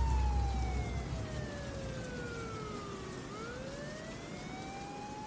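A single electronic siren-like tone at the end of a funk track. It glides slowly down for about three seconds, then turns and rises back up, while a deep rumble from the song's last hit dies away in the first second.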